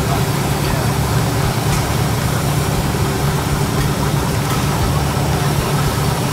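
Steady low engine hum at a constant pitch, like a motor idling, running without change.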